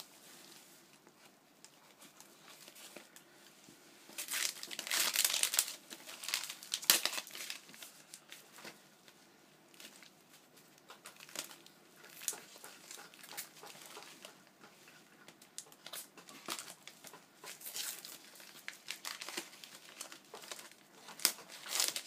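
Packaging being crinkled and torn open by hand while a gift is unwrapped, in irregular rustling bursts. It is loudest about four to seven seconds in and again near the end.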